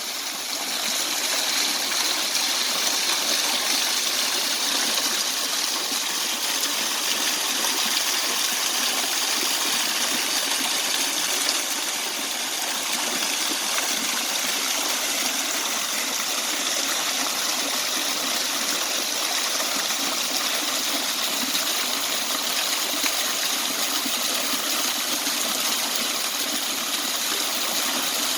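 Waterfall: water falling and splashing in a steady, unbroken rush, mostly a bright hiss with little low rumble.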